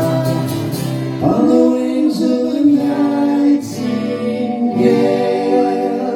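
Live pop song near its end: held sung vocal notes over guitar chords.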